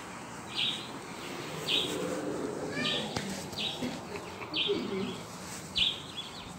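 Short high-pitched chirps repeating about once a second, with faint low sounds in between.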